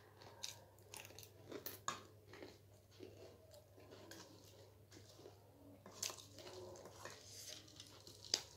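A person chewing and crunching crisp snack food, with irregular crunches and the sharpest crunch near the end.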